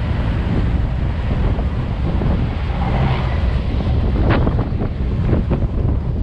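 Wind buffeting the microphone in the open back of a moving pickup truck, over the steady low rumble of the truck on a dirt road, with a few sharp knocks from about four seconds in.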